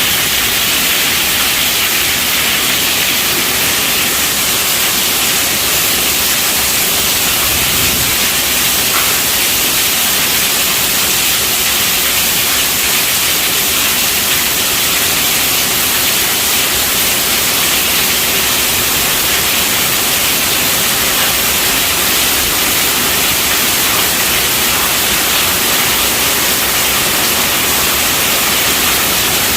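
Heavy rain falling steadily on a tent roof: a dense, even hiss with no breaks.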